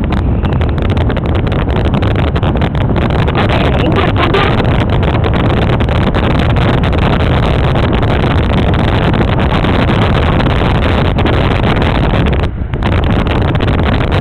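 Loud, steady rush of wind buffeting the microphone of a camera moving along a road, mixed with the running noise of the vehicle carrying it; it drops briefly near the end.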